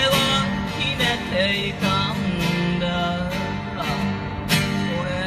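Live solo song: an acoustic guitar strummed in chords, with a sung melody over it.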